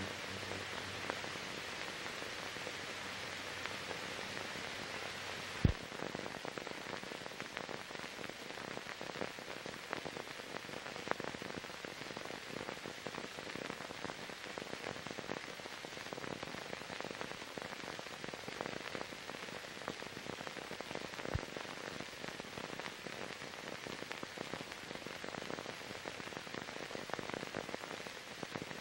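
Steady hiss with scattered crackles and clicks, the noise of a blank soundtrack on silent archive film. One louder pop comes about six seconds in.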